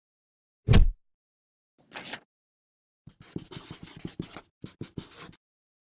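A heavy thump just under a second in and a softer swish at about two seconds. Then a felt-tip marker writes on paper in a quick run of short scratchy strokes for about two seconds.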